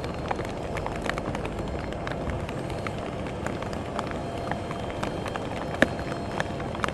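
Airbus A380 airliner on final approach, its engines a steady distant rumble with a faint held tone. Raindrops strike the microphone throughout as scattered sharp clicks, one louder about six seconds in.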